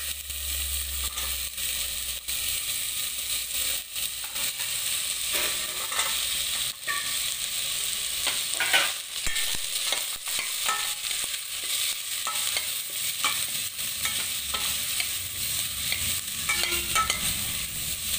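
Chopped vegetables sizzling in hot oil in a stainless steel pot while a metal spoon stirs them, scraping and clinking against the pot now and then, with one louder clank a little before halfway.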